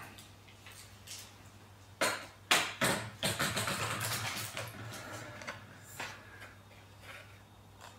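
Line trimmer parts and packaging being handled: three sharp knocks in quick succession about two seconds in, followed by a couple of seconds of rustling and scraping, with a few light clicks.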